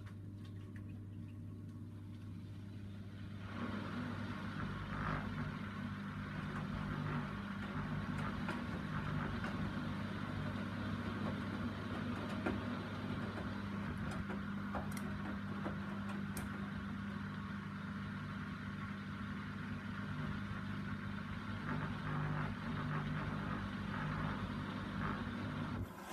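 Hoover Dynamic DYN 9164 washing machine early in a Rapid 30 wash: a steady low hum, joined about three and a half seconds in by a louder, even rushing and churning wash noise. The hum stops near the end.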